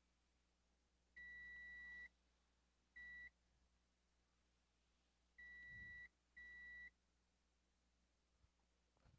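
Digital multimeter's continuity buzzer beeping four times, a steady high-pitched beep each time, the first and third about a second long, the second and fourth shorter. Each beep signals a low-resistance path between the probe tips on the graphics card's circuit board.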